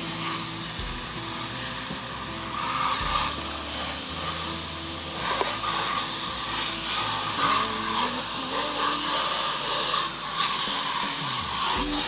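Water hissing steadily from a spray nozzle set to mist, over background music with held, slowly changing notes.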